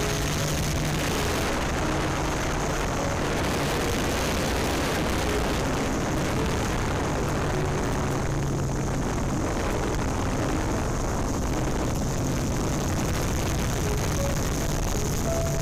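Yuneec Typhoon Q500+ quadcopter's motors and propellers running in flight: a steady whirring hiss with a constant high whine over it.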